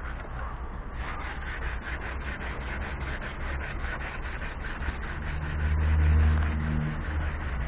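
Sandpaper rubbed by hand back and forth over scratched car paintwork, in quick strokes several times a second, smoothing the edges of a deep scratch. A low hum swells and fades from about five to seven seconds in.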